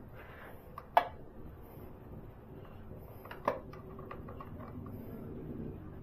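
Small metallic clicks of a short Phillips screwdriver working a long screw on a motorcycle's air box side panel. A sharp click comes about a second in, another about three and a half seconds in, followed by a few faint ticks.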